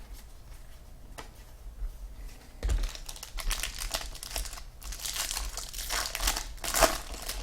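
Plastic trading-card pack wrapper being torn open and crinkled in the hands, a few light clicks at first, then a long stretch of crackling that peaks near the end.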